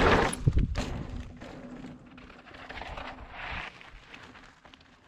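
Mountain bike riding on a dirt singletrack: tyres crunching over the dirt and the bike rattling over bumps. The loudest knocks come in the first second, and there is a louder hiss of tyres on loose dirt about three and a half seconds in.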